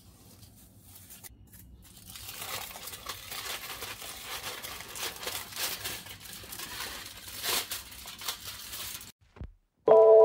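Aluminium foil crinkling and crackling as the foil seal is peeled off a hot dum-cooked biryani pot, after faint rustling while its string tie is undone. The crinkling stops abruptly, and chime-like music starts near the end.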